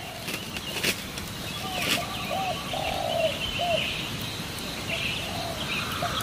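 Birds calling with short, repeated arching chirps over a crackling wood fire, which gives a sharp pop about a second in and another about two seconds in.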